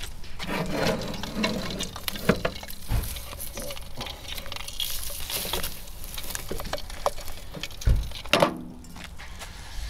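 Handling noise as hot wax is worked into a bicycle bottom bracket: small clicks and scrapes with a hiss, and dull knocks about three seconds in and again about eight seconds in.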